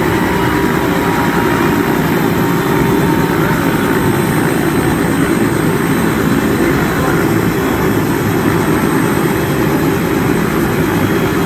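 Robinson R66 turbine helicopter running on the pad: a loud, steady rotor and engine noise with a faint high turbine whine over it.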